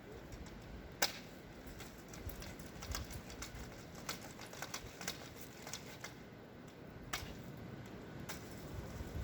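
Irregular sharp ticks and clicks, a few a second and uneven in spacing, with a louder click about a second in and another near 7 seconds.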